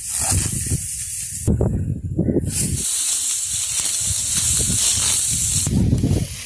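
Dry wheat stalks rustling and crunching as they are cut by hand with a sickle, in a series of irregular strokes over a steady high hiss.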